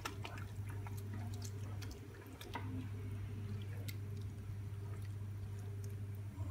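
Wooden spoon stirring thick tomato pulp and minced beef in a frying pan: wet squelching with scattered light clicks of the spoon against the pan, over a steady low hum.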